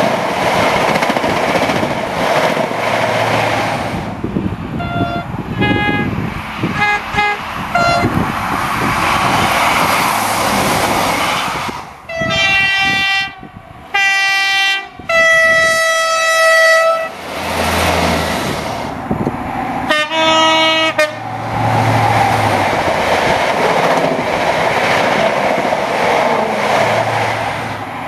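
Diesel trains' two-tone horns sounding on the open line, first as a string of short alternating toots, then as longer held blasts, and once more briefly. Between the horns there is the steady rumble and rush of a train running along the track, loudest at the start as HST coaches pass close by.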